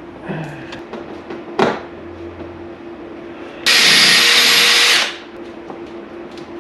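Cordless drill run in one burst of about a second and a half, with a single knock shortly before it.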